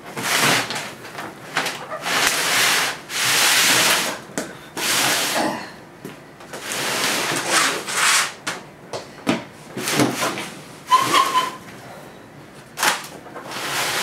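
A refrigerator being shoved in a series of short pushes, scraping and rubbing as it slides over hardboard and craft paper laid on a tile floor. There is a short squeak about eleven seconds in.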